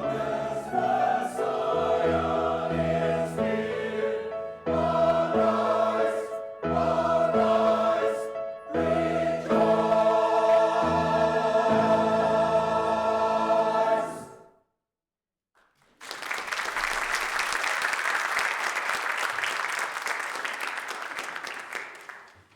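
Church choir singing a Christmas piece with sustained chords, ending about 14 seconds in. After a short silence, the congregation applauds for about six seconds, fading out near the end.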